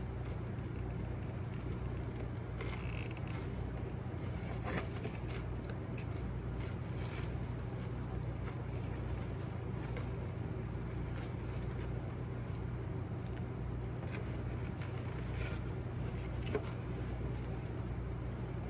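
Car cabin noise while driving: a steady low rumble of engine and road, with a few faint clicks and rustles.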